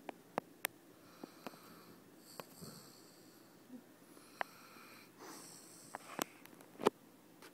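Sleeping Basset hound snoring: a few slow, wheezy, whistling breaths through the nose. Sharp little clicks scattered throughout.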